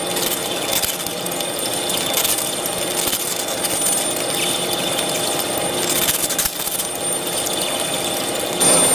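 A heavy-duty lathe's cutting tool turning a large steel rotor shaft: a steady metallic scraping hiss of the cut, with a dense crackle of chips breaking off.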